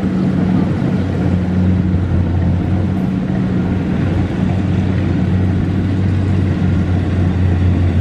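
Kubota DC70 rice combine harvester running steadily as it drives through the field cutting and threshing rice, its diesel engine a constant low drone over a clatter of machinery.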